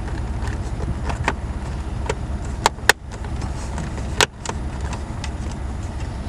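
Plastic clicks and three sharp snaps, two close together and a third about a second and a half later, as the rubber boot and trim around the steering column are pressed back into place over the new turn signal switch. A steady low rumble goes on underneath.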